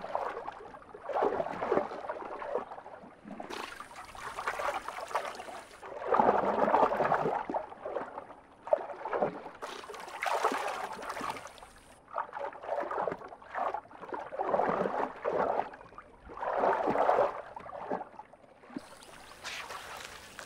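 Water splashing and gurgling in irregular swells, stirred up by spot-necked otters swimming and hunting.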